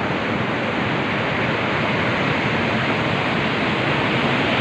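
Steady wash of ocean surf breaking on the shore, growing slightly louder toward the end.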